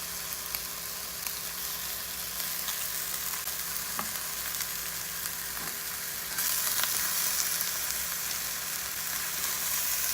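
Chicken feet, garlic and onions sizzling in hot vegetable oil in a pan over a propane burner, with a few faint clicks. The sizzle grows louder about six seconds in.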